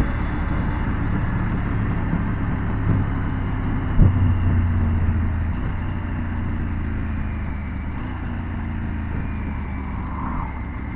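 Triumph Tiger 900's three-cylinder engine running steadily as the motorcycle slows down, heard from on board, with one short knock about four seconds in.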